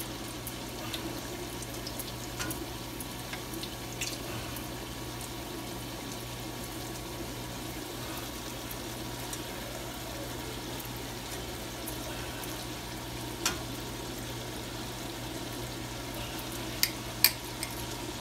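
Fry bake dough frying in hot oil in a pan, a steady sizzle. A few sharp clicks of metal tongs against the pan come once past the middle and twice near the end.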